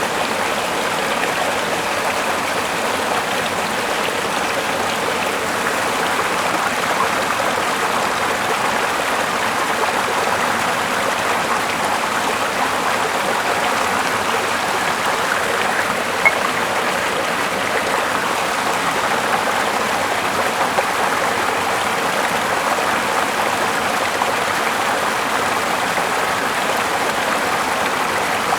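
Steady rushing noise of flowing water, even and unbroken, with one faint click about 16 seconds in.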